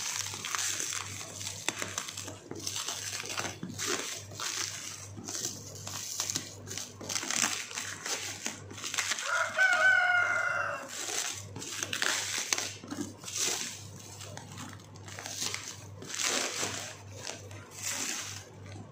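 Clear plastic shrink wrap crinkling and rustling as it is peeled and pulled off a cardboard box. Near the middle a rooster crows once, the loudest sound.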